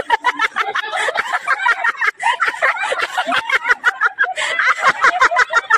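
A crowd of onlookers laughing and chattering, many voices overlapping in rapid bursts of laughter.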